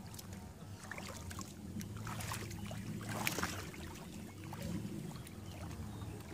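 Hands sloshing and splashing in shallow muddy water as several people grope for crabs, with irregular small splashes and drips.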